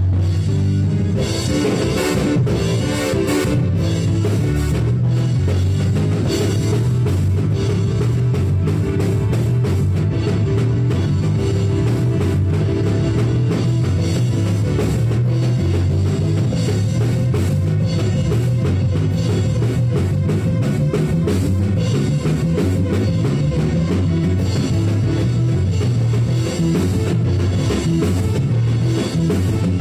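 Live church band music: a drum kit keeping a steady beat over a bass line, played loudly throughout.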